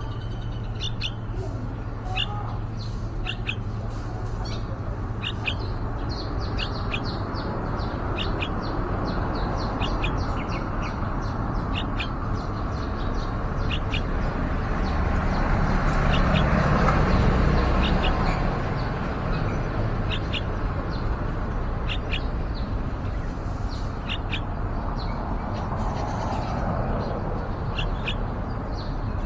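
Yellow-vented bulbuls chirping: many short, sharp chirps repeated irregularly, over a steady low hum. About halfway through, a broad rushing noise swells and fades.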